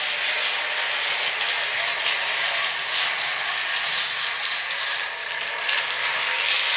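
Vintage Tri-ang Railways electric model locomotive whirring steadily as it pulls two carriages round metal track, its wheels rattling over the rail joints. It is running on old track that still needs cleaning.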